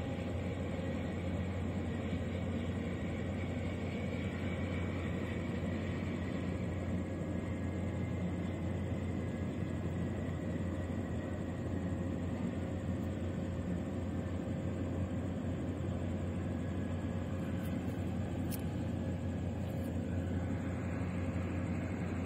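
Steady low rumble and hum of distant engines and machinery across a harbour, with a faint whine that rises near the end.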